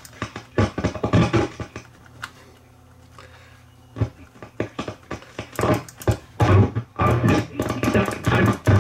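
Technics SA5470 stereo receiver's audio through a speaker cutting in and out in choppy, crackling bursts over a steady low hum, quiet for a couple of seconds in the middle; the owner puts the dropouts down to filthy switches.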